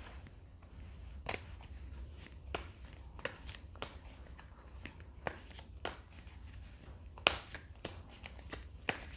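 A deck of tarot cards being shuffled and handled by hand: irregular soft flicks and slaps of the cards, with one sharper snap a little after seven seconds in.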